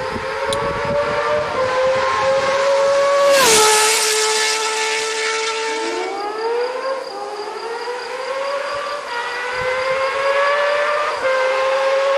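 Honda CBX 1050's inline-six engine at high revs with a shrill, many-toned note. It drops in pitch about three and a half seconds in, then revs up again in a run of rising sweeps, gear after gear.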